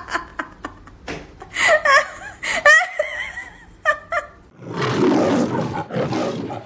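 A person laughing in short, pitched bursts, then, from about two-thirds in, a loud, rough roar with no clear pitch that comes in two surges.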